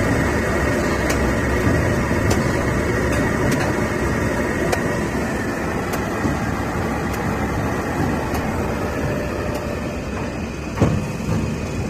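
Dual-roll slitting machine running steadily: a dense, even mechanical hum with a faint regular tick about once a second. A single sharper knock sounds near the end.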